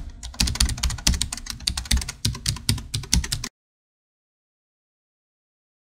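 Computer keyboard typing sound effect: rapid key clicks that stop abruptly about three and a half seconds in.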